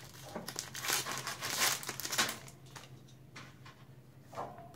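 Plastic wrapper of a trading card pack crinkling as it is handled and torn open, dense for about two seconds and then quieter, fainter rustles.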